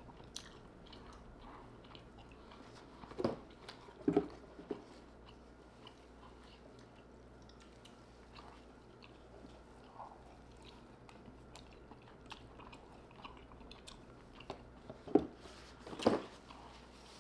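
Close-up eating sounds of a person chewing and biting into Alaskan king crab leg meat. A few louder crunches come about three to five seconds in and again near the end.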